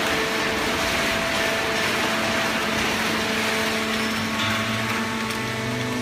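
Automatic horizontal hydraulic paper baler and its feed conveyor running: a steady mechanical whirring noise with a few steady hum tones over it. A lower hum joins about four and a half seconds in.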